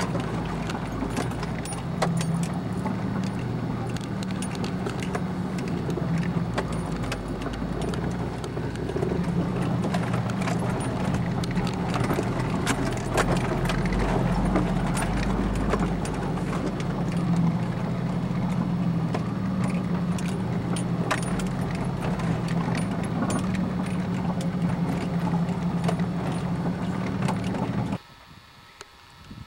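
Off-road vehicle driving slowly over a rough, rocky dirt track, heard from inside the cab: a steady engine drone under constant rattling and clattering from the jolting ride. It cuts off suddenly near the end to quiet outdoor background.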